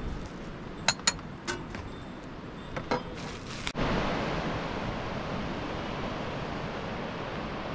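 A few sharp clicks and knocks, then, after an abrupt cut about halfway through, the steady rushing of a river.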